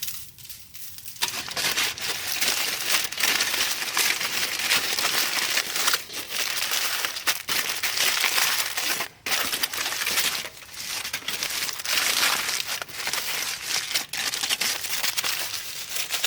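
Wrapping crinkling and crumpling steadily as it is folded and handled, starting about a second in.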